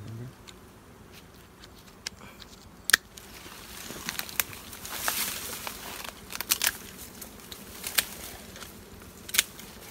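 Wild honey bees buzzing around a freshly cut honeycomb, with dry brush rustling and several sharp twig snaps as branches are pushed aside. The loudest snap comes about three seconds in.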